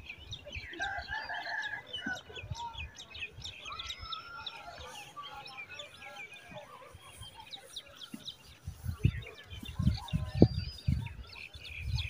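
Farmyard chickens clucking, with small birds chirping throughout. A run of loud, low thumps comes in the last few seconds.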